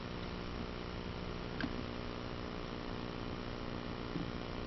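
Steady background hiss with a low electrical hum and no clear event, and one faint tick about a second and a half in.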